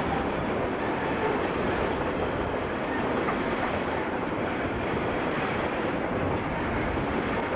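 Coal hopper wagons of a freight train rolling past close by, a steady noise of wheels running on the rails.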